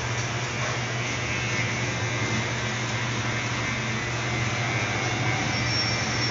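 Electric hair clipper buzzing steadily as it trims short hair.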